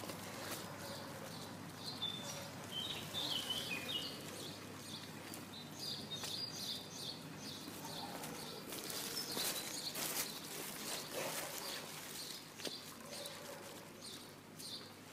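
Small birds chirping again and again in short high calls over a faint steady background noise, with a few light ticks.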